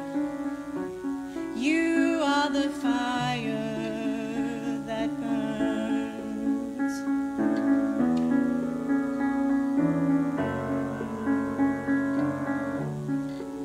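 A woman sings a slow song solo to piano accompaniment, holding long notes with vibrato over sustained piano chords.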